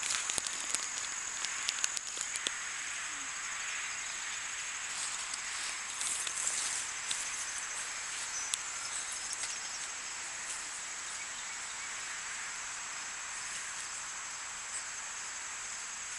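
Steady high-pitched insect chorus, crickets or similar, over a soft even hiss, with a few sharp clicks in the first couple of seconds.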